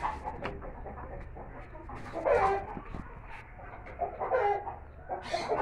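Chickens clucking, a few short calls about two seconds in, again after four seconds and just before the end.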